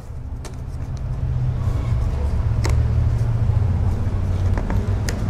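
A low vehicle engine rumble that slowly builds. Over it come a few sharp clicks from a screwdriver prying at a plastic hose clamp.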